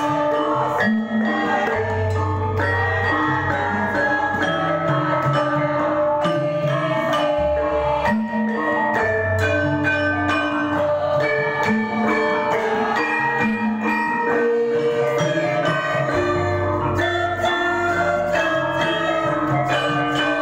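Javanese gamelan ensemble playing: bronze kettle gongs (bonang) and metallophones struck with mallets in a dense, steady run of ringing notes, with drum and deep low notes that return about every seven seconds.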